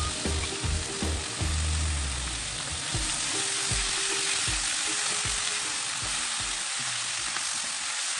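Zucchini and onion slices sizzling steadily as they stir-fry in a pan, stirred with a silicone spatula that brushes and taps against the pan now and then.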